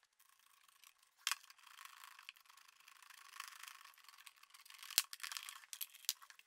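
Faint handling noise of a metal hose clamp and flexible aluminum duct hose being fitted: light rustling and scraping with a sharp click about a second in, another about five seconds in, and a few lighter clicks near the end.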